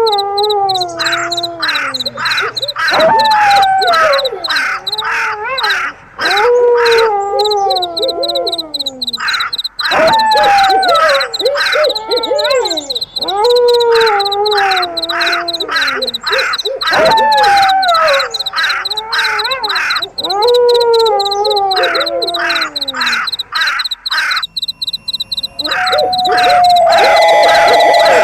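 Layered night-animal soundtrack: a falling, howl-like call repeats about every three seconds over rapid, harsh caw-like calls and steady high cricket chirping. The pattern pauses briefly near the end.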